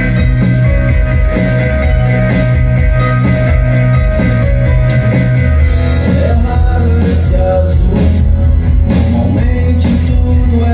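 Rock song with a heavy bass line played loudly through home tower speakers and picked up by a phone's microphone in the room; vocals come in about halfway through.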